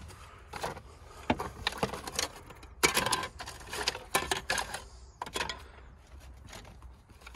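Irregular clicks, knocks and rattles of loose plastic engine-bay covers and trim being moved about by hand.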